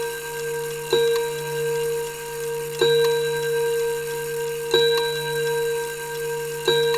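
Old clock ticking slowly, a sharp tick about every two seconds, four in all. Each tick sets off a bell-like ringing tone that carries on until the next one.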